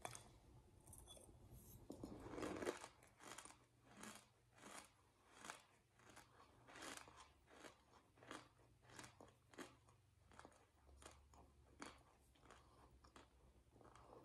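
Faint close-up crunching and chewing of a mouthful of shaved ice eaten by the spoonful: a strong crunch about two seconds in, then a steady run of shorter crunches, one or two a second.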